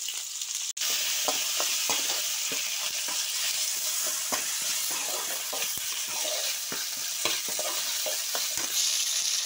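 Shallots, tomatoes, curry leaves and ginger-garlic paste sizzling in sesame oil in a metal pan, with a spatula stirring and scraping against the pan in irregular strokes.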